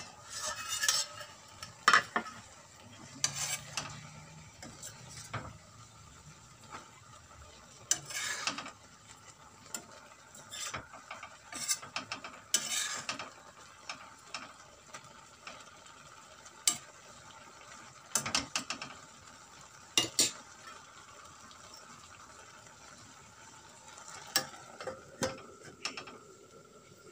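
A stainless-steel plate used as a lid clatters against an aluminium karahi as it is lifted off and later set back on, and a metal spatula scrapes and knocks irregularly against the pan while vegetables are stirred, over a faint frying sizzle.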